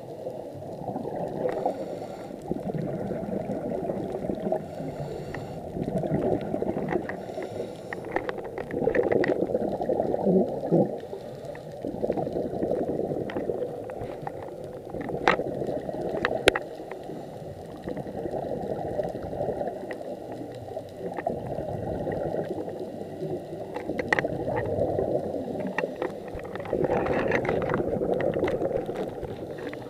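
Muffled underwater gurgling and bubbling, swelling and fading every few seconds, with a few sharp clicks.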